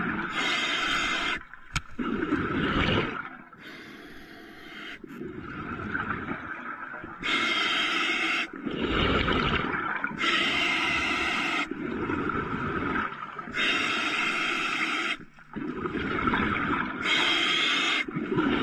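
A diver breathing underwater through a compressor-fed hookah regulator: rushing inhalations and bubbling exhalations in bursts, a breath every few seconds.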